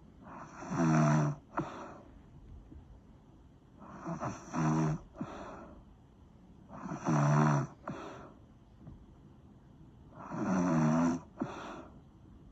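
Snoring: four loud snores about three and a half seconds apart. Each is a buzzing breath of about a second, followed by a shorter, fainter puff.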